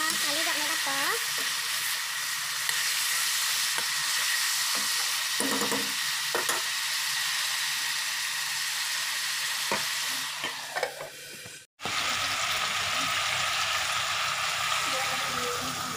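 Pork frying in oil in a metal wok, a steady sizzle as it is stirred, with a few short knocks against the pan. The sound cuts out for a moment about twelve seconds in, then the sizzle goes on more softly with potatoes added to the pork.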